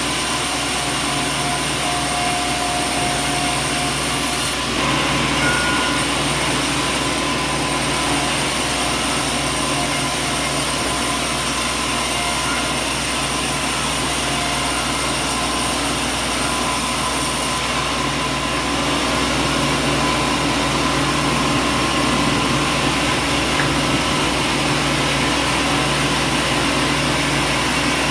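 Sawmill machinery running steadily, a constant mechanical hum and whine with no cutting strikes or impacts. The sound changes abruptly about four seconds in and again past the middle.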